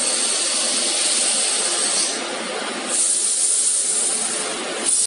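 Steady industrial machinery noise from a robotic laser welding cell: a rushing hum under a high hiss that drops away about two seconds in and comes back about a second later.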